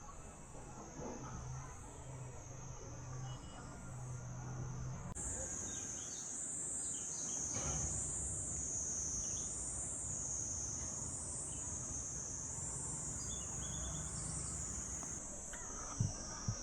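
Insects chirring outdoors: a steady high-pitched buzz that, about five seconds in, begins to swell and fade in waves a little more than once a second, over faint low background noise.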